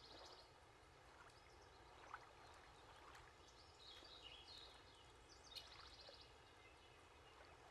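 Near silence: faint outdoor ambience with a few soft, high bird chirps scattered through it.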